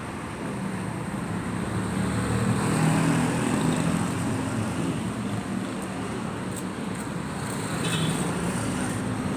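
Road traffic on a rain-wet street: a steady wash of passing vehicle engines and tyre noise, swelling as vehicles pass about two to three seconds in and again near the end.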